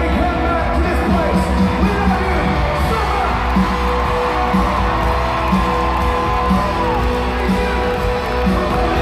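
Live country band playing in an arena as heard from the audience: fiddle, electric guitars, bass and drums with singing over a steady beat. A long held note sounds from about three seconds in and drops away about seven seconds in, and fans whoop.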